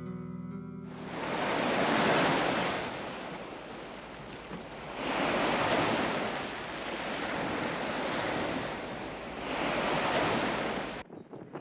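Strong wind rushing in gusts, swelling three times and cutting off just before the end. In the first second the last chord of a piece of music dies away.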